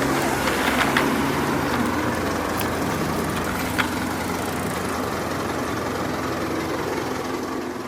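Heavy engine of construction machinery running steadily at idle, with a few sharp metallic clicks over it in the first four seconds. It starts to fade out at the very end.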